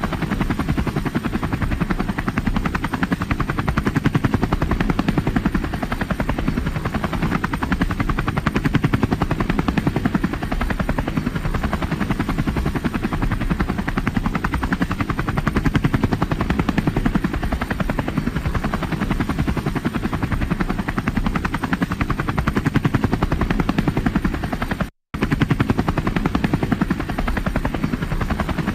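Helicopter in flight, its rotor blades giving a fast, steady chop over the engine's running noise. The sound drops out to silence for a split second a few seconds before the end, then resumes unchanged.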